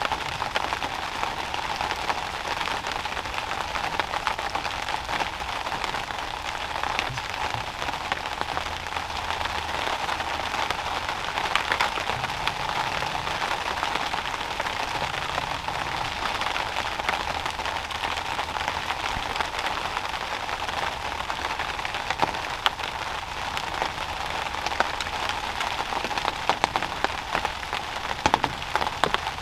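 Steady rain pattering, made up of many small drop ticks, with a few sharper ticks near the end.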